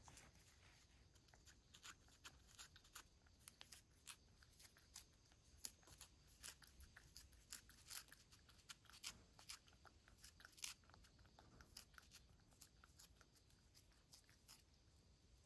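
A cat licking a treat out of a small foil wrapper held in the fingers: faint, irregular licking clicks with light crinkles of the wrapper.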